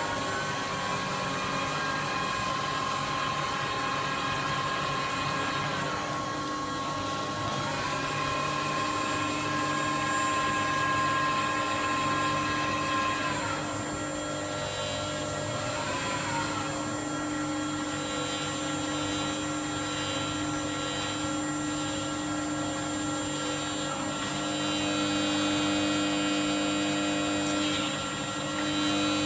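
CNC machine running, a steady mechanical whine made of several held tones, shifting in pitch with short rising and falling glides a few times as the machine's motion changes.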